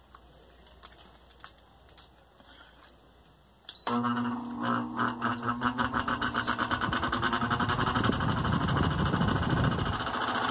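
Mallory electric fan switched on about four seconds in after a few faint clicks: its motor hums with a fast rhythmic rattle, very noisy. The noise comes from a worn motor bushing that needs replacing.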